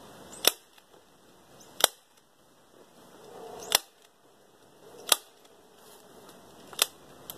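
Manual staple gun firing staples through a tarp into a wooden roof beam: five sharp snaps, one every second or two.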